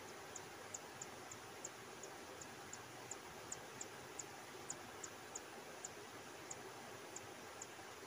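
Forktail nestlings begging with thin, very high peeps, about two to three a second and growing sparser toward the end, over a steady hiss.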